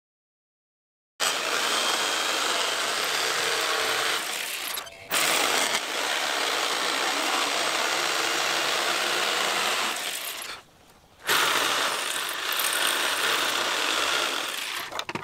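Electric jigsaw cutting through a wooden board. It starts about a second in and runs in three stretches, with a brief pause about five seconds in and a longer one about ten seconds in.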